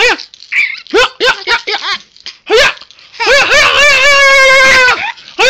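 A high-pitched voice giving short squealing yelps, then a long, steady wail from about three seconds in that breaks off and starts again near the end.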